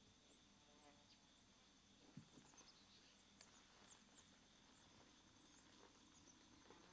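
Near silence: faint outdoor morning ambience with many small bird chirps and a steady high insect drone, and a soft low thud about two seconds in.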